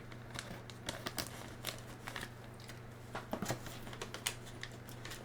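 Faint crinkling and scattered small clicks of a plastic snack bag being handled as a biscuit chunk is taken out, over a steady low hum.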